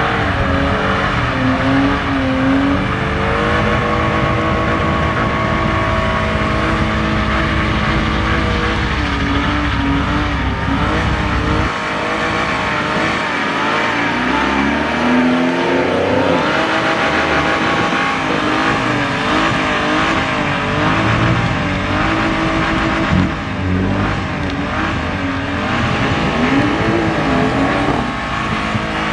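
BMW E46 3 Series engine held at high revs, its pitch rising and falling again and again, while the rear tyres spin in a smoky burnout and donuts. Under the engine there is a hiss of tyre noise.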